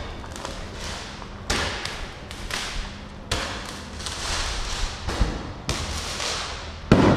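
Fireworks going off: a string of separate bangs, each followed by a fading rush of noise, with the loudest bang near the end.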